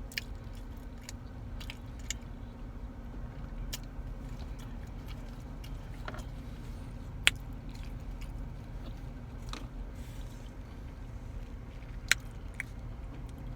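Close-up mouth sounds of a person biting and chewing food, with scattered small clicks and smacks and two sharper clicks about seven and twelve seconds in, over a steady low hum.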